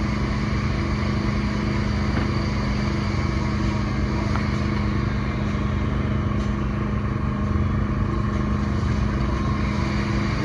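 Diesel engine of an excavator or dumper running steadily at an even speed, a constant low drone with a steady hum.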